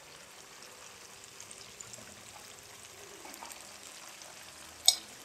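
Faint sizzle and scattered crackles of hot oil as deep-fried battered chicken strips are lifted out with a wire spider strainer, with one sharp clink near the end.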